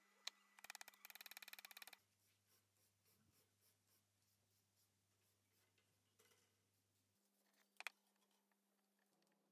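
Near silence, with a brief faint crackling for about a second near the start and a single faint click near the end.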